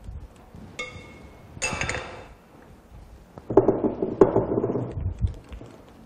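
A spatula stirring and scraping thick berry mousse cream in a glass stand-mixer bowl, in separate bursts, with a short ringing clink from the glass about a second in.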